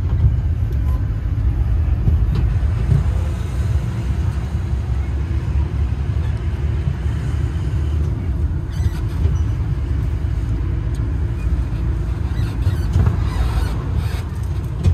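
Little tourist road train driving along, heard from aboard: a steady low rumble of its engine and wheels.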